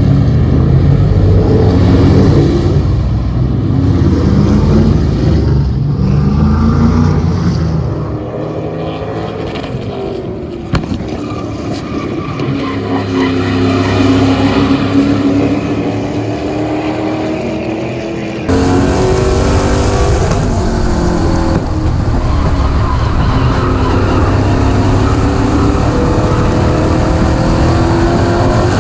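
Race car engine running practice laps on a short oval, its pitch rising and falling as the driver goes on and off the throttle. The sound changes abruptly about two-thirds of the way through.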